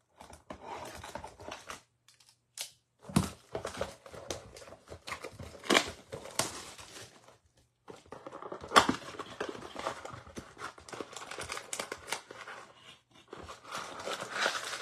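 Plastic shrink wrap being torn off a cardboard trading-card blaster box and crumpled, crinkling and crackling in irregular bursts with a few sharp snaps. Near the end the box's cardboard flap is pulled open.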